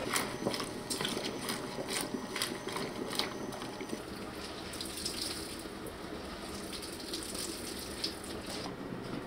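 A wooden spoon stirs cooked greens in a pot, with light clicks and scrapes. About four seconds in, a kitchen tap runs into the sink while hands rinse and squeeze the greens.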